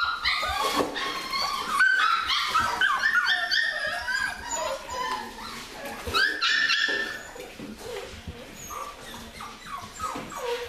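Several young puppies whining and yipping with many overlapping high-pitched cries, busiest in the first seven seconds and quieter toward the end.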